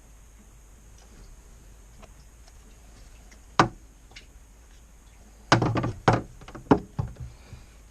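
Sharp knocks and clanks from handling tools and parts during an oil cooler line repair: one about three and a half seconds in, then a quick cluster of several near the end.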